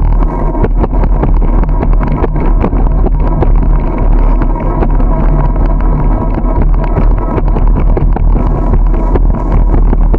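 Wind buffeting the microphone of a camera on a moving bicycle, with a loud, steady low rumble from the ride and frequent small knocks and rattles from bumps in the road.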